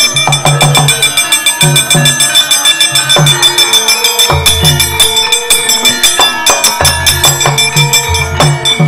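Javanese gamelan playing a fast, loud srepeg: many sharp, ringing metallic strikes over a run of low drum strokes.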